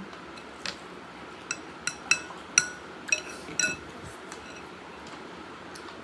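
Metal spoon clinking against a bowl while food is scooped out: a quick run of about seven sharp, briefly ringing clinks between about a second and a half and four seconds in.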